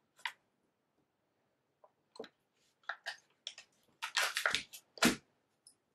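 Knife cutting through a block of butter on its wrapper: a scatter of short scrapes and rustles, busiest about four seconds in, with a duller knock about five seconds in.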